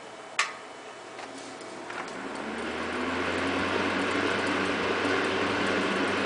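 Switch clicked once on a vintage Bersted-made Manning Bowman 12-inch box fan, whose motor then spins up on high: a low motor hum and rushing air build over a second or two and settle into a steady run.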